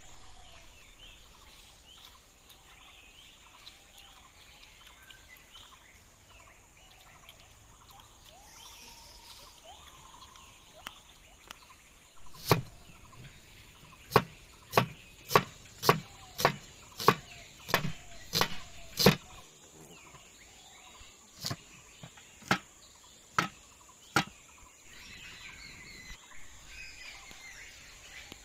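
A large knife chopping a red onion on a wooden board: a run of about ten sharp strikes roughly every half second, then four more spaced further apart. Birds chirp faintly before and after the chopping.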